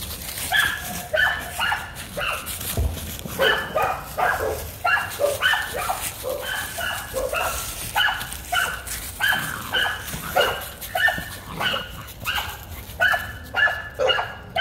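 American pit bull terrier puppy play-barking at a ball: a long run of short, high-pitched barks and yips in quick succession, about two or three a second.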